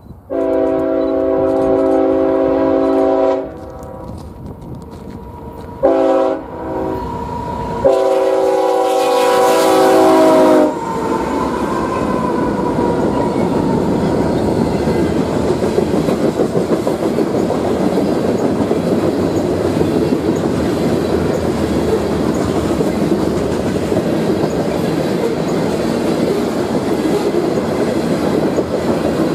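Diesel freight locomotive's air horn sounding a chord in several blasts as the train approaches: a blast of about three seconds at the start, short blasts about six seconds in, and a long blast from about eight to eleven seconds. The locomotive then passes with the horn tone sliding down in pitch, followed by the steady rolling noise and clickety-clack of boxcars and covered hoppers going by.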